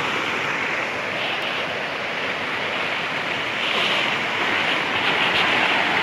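Whitewater rushing over rocks in a stream below a waterfall, a steady rush of water.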